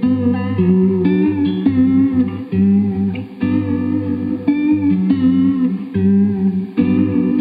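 Danocaster electric guitar played through a Dr. Scientist Cosmichorus chorus pedal into a Divided by 13 EDT 13/29 KT66 tube amp. It plays a chord-and-note riff that repeats about every three and a half seconds, with a slight wavering in pitch.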